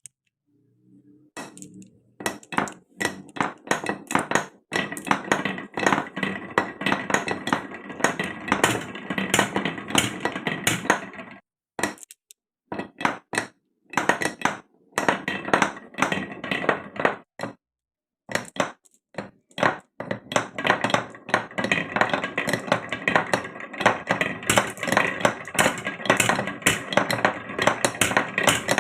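Many marbles rolling and clattering down a wooden marble run, clicking against the wooden slopes and blocks as they go. It is a dense, steady clatter that starts a moment in and breaks off briefly a few times.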